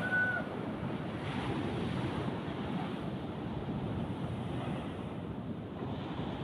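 Surf breaking and washing along a sandy shore, a steady rushing with wind blowing on the microphone. A brief high chirp sounds right at the start.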